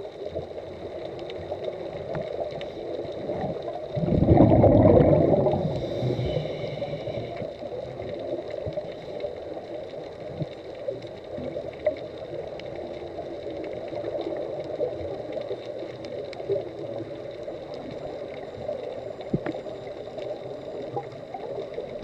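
Underwater ambience recorded from within a camera housing while scuba diving: a steady muffled water rush with small clicks. About four seconds in, a loud, deep gush of scuba bubbles lasts about two seconds.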